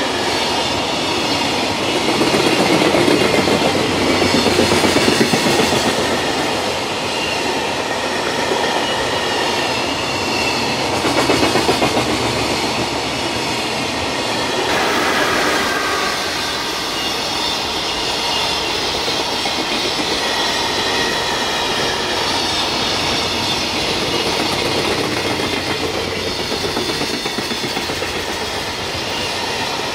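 Container freight train rolling past at close range, its wagon wheels clattering over the rail joints in a steady run of clickety-clack.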